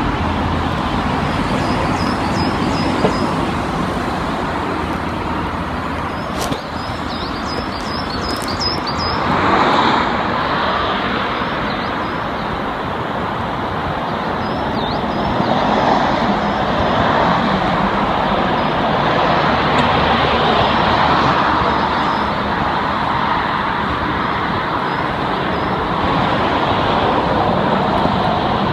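Steady road traffic noise, swelling now and then as vehicles pass, with a few faint high chirps in the first ten seconds.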